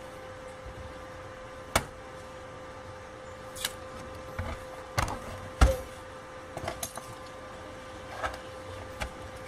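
Knocks and clicks of an Acer Aspire 4749Z laptop's plastic case being handled on a workbench: the lid shut, the machine turned over and set down, then hands working at the bottom panel. The loudest thump comes just past halfway, over a faint steady hum.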